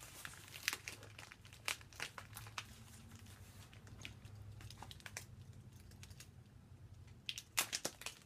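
Faint crinkling and scattered small clicks of packing tape and cardboard being worked loose by hand, with a quicker cluster of crackles near the end.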